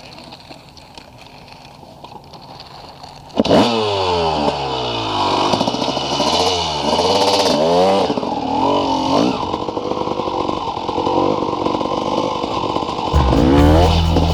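Dirt bike engine starts abruptly about three seconds in and is revved up and down several times with the throttle, then keeps running at a high level.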